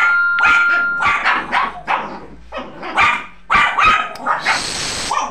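Dogs barking in rapid short barks as a husky and shih tzus squabble, a quarrel the husky started with one of the small dogs.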